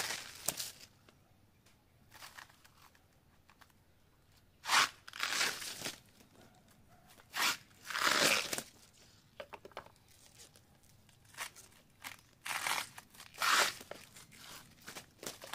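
Outer leaf sheaths of a banana trunk being pried apart with a machete and pulled off by hand: the fibrous layers tear and crunch as they come away. The tearing comes in separate strokes of about a second, with pauses between.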